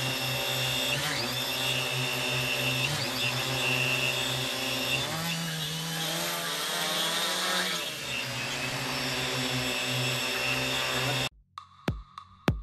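Brushless motors and propellers of a large multirotor drone (SunnySky 3508 580KV motors, 13-inch props) running with a steady whine, the pitch gliding up and down several times as the throttle changes. Near the end it cuts off suddenly and electronic music with sharp drum beats starts.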